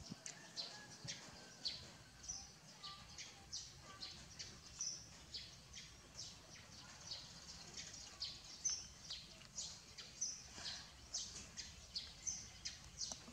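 Small birds chirping in a steady stream of short, high chirps, a few each second.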